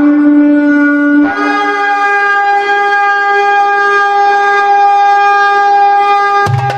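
A long horn blast opening a recorded song: a lower note that jumps up about a second in to a higher note held steadily for several seconds. Drums come in just before the end.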